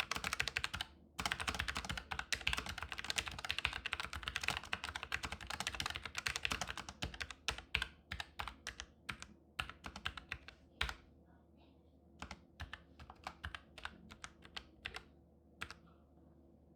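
Typing on a Logitech computer keyboard: fast, continuous keystrokes with a brief pause about a second in, then slowing to separate, spaced key presses in the second half.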